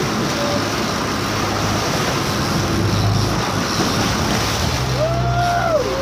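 Steady wind and sea noise aboard a boat with a low engine hum. About five seconds in, a voice breaks in with rising and falling whoops.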